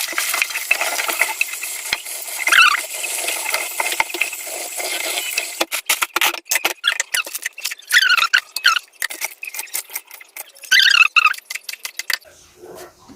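Tap water running for about five seconds, then wet spinach leaves handled with a rapid crackling rustle. A few short, high squeaks are heard among it.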